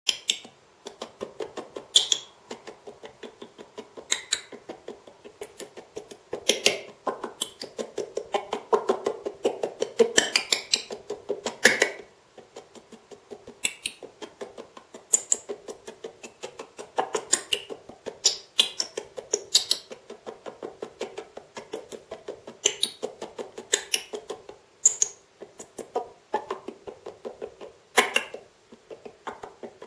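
TV decoder audio glitching: the broadcast sound is broken into short, granulated fragments with a stuttering, delay-like repeat. It comes as a rapid pulsing at about four a second, with sharper clicks every second or two.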